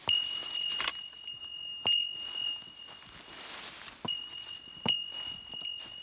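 A bear bell jingling with each stride, a clear high ring struck again and again at uneven intervals with a short lull in the middle, over footsteps rustling through dry fallen leaves.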